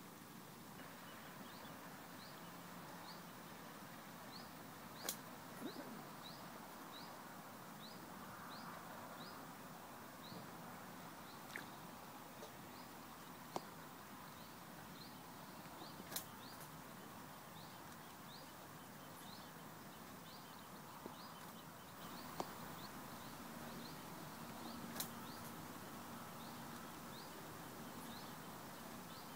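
Quiet lakeside ambience with a small bird repeating a short, high, rising chirp steadily, about twice a second, and a few sharp clicks now and then.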